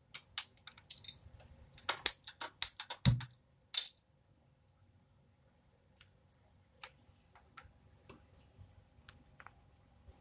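Prestige pressure cooker lid being fitted and its handle closed and locked: a run of sharp metal clicks and knocks, with a duller knock about three seconds in, then a few faint ticks.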